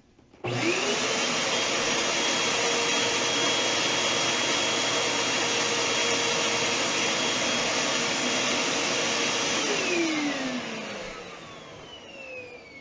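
Electric household appliance motor switched on abruptly, running loud and steady with a high whine for about nine seconds. It is then switched off and spins down, its whine falling in pitch as it fades.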